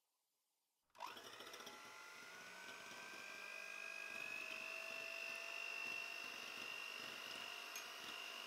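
Electric hand mixer switched on about a second in and running steadily, its two beaters whipping egg whites in a ceramic bowl. A steady high motor whine whose pitch creeps slightly upward.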